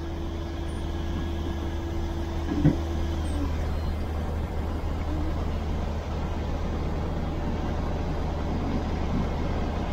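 Fishing boat's engine running steadily: a low, even drone with a haze of noise over it.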